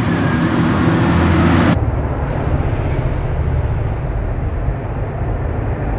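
Road traffic on a main road: a steady low rumble of passing vehicles. The sound changes abruptly about two seconds in, as at a cut in the recording.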